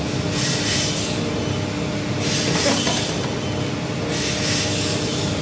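Steady mechanical hum with a low steady tone underneath, and a rushing hiss that swells and fades about every two seconds.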